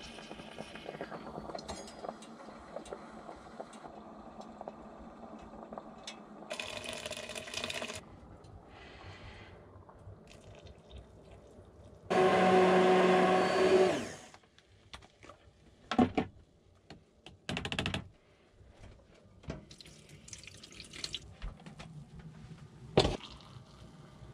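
A small electric blender motor runs loudly for about two seconds midway, with a steady pitch that sinks as it is switched off. Around it are quieter kitchen sounds: a low steady hum, liquid being poured, and a few sharp clicks and knocks of utensils.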